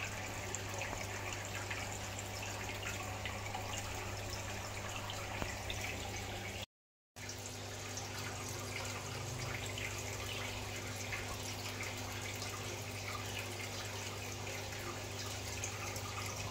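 Steady trickling, dripping water with a low steady hum under it, dropping out for half a second about seven seconds in.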